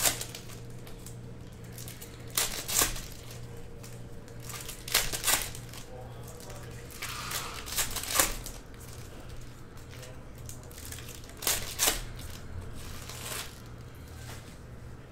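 Foil trading-card pack wrappers being torn open and crinkled in the hands, in short bursts every couple of seconds. A steady low electrical hum runs underneath.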